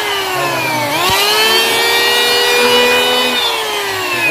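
HiKOKI (Hitachi) P20SB electric hand planer running with a high motor whine. The pitch sags and picks back up twice, with a sharp click about a second in.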